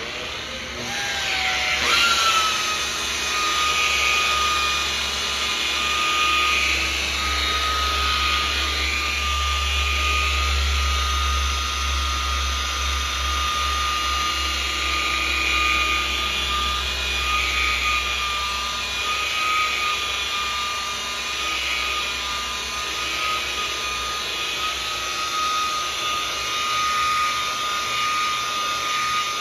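DeWalt rotary polisher spinning up about a second in, its motor whine rising in pitch and then holding steady, while the foam pad works polish into a freshly painted panel.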